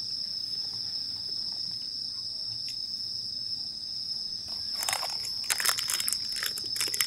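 Insects chirring, one continuous high-pitched whine. About two-thirds of the way in, close crackling and rustling comes in on top for a couple of seconds.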